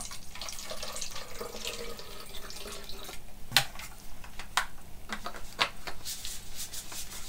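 Water poured from a plastic bottle into the narrow neck of a white plastic dog travel bottle, trickling for about three seconds. Then a few sharp plastic clicks, the loudest about three and a half seconds in, as the green fold-out trough cap is handled and fitted onto the bottle.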